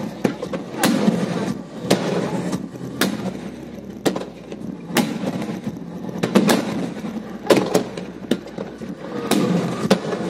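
Aerial firework shells bursting overhead: a string of sharp bangs, about one a second and some in quick pairs, over a steady background din.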